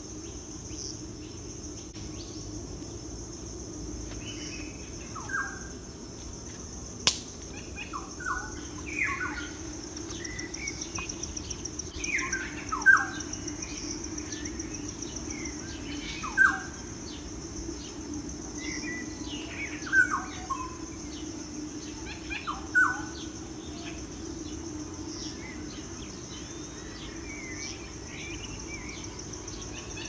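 Outdoor nature ambience: a steady high insect chorus, with a bird giving short falling calls every three to four seconds through the middle. A single sharp click sounds about seven seconds in.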